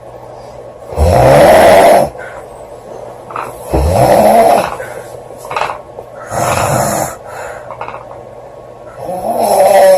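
A girl snoring loudly while asleep: four long snores, one every two and a half to three seconds, with quieter breathing between them.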